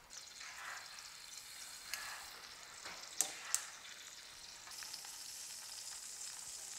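Blue Band margarine and a little oil melting and sizzling in a frying pan: a soft steady hiss that grows brighter near the end. A few light clicks come about two to three and a half seconds in.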